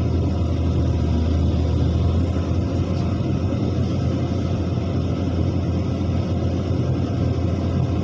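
Heavy diesel construction machinery running steadily, its sound strongest in a low, even hum.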